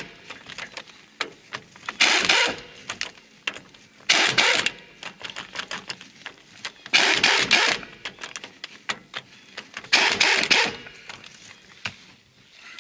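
Cordless power tool with a socket running in four short bursts, each under a second, as it spins out the half-inch bolts holding the rear axle shaft flange to the hub, with small metal clicks of the socket being fitted onto each bolt in between.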